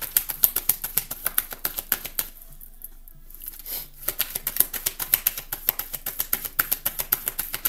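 A deck of tarot cards being shuffled by hand: a rapid run of card clicks that pauses for over a second a little past the middle, then starts again.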